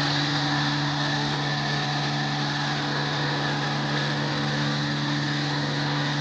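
A machine running steadily at constant speed, a low hum under a loud hiss, starting abruptly.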